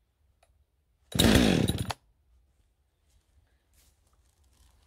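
Husqvarna 545 AutoTune chainsaw's two-stroke engine firing briefly on a starter-cord pull during a choked cold start. It catches for under a second, its pitch falling, and dies: the first pop that tells you to take the choke off before pulling again.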